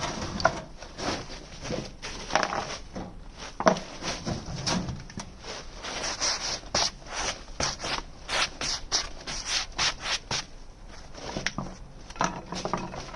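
Irregular scraping and rubbing on wood, many short strokes in quick succession. The chainsaw is not running.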